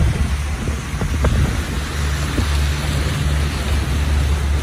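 Motorboat engine running steadily in a low drone, with wind buffeting the microphone.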